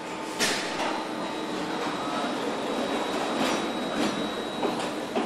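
Car assembly line running: a conveyor carrying Mercedes S-Class powertrain assemblies, with a steady mechanical din and a faint high steady tone. Several short sharp bursts sound over it, the loudest about half a second in.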